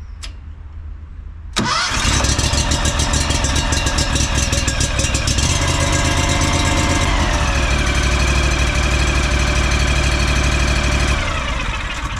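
Kawasaki V-twin engine of a Wright Stander I stand-on mower starting up about a second and a half in and catching at once. It runs steadily, rises in pitch to a higher throttle setting about halfway through, then dies down near the end.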